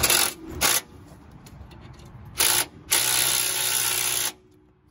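Cordless drill spinning a socket on the lower shock-mount nut of a new Bilstein shock. It runs in four bursts: two short ones at the start, a brief one a little past halfway, then a longer run of about a second and a half.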